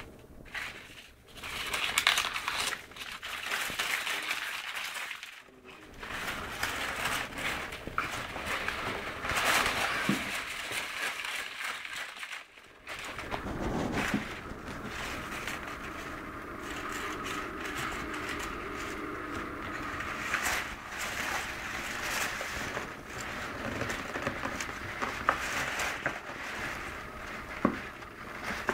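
Toilet paper and a thin cardboard box rustling and crinkling on and off as a baby grabs and pulls at them, with occasional small taps.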